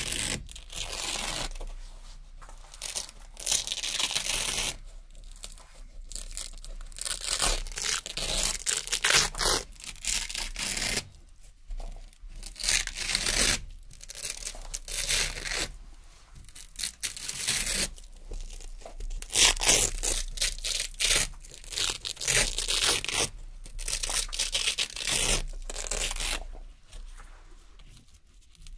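Narrow Velcro strips being pulled off a hook-and-loop board one after another, each pull a crisp, crunchy rasping tear lasting a second or two, with short pauses between pulls.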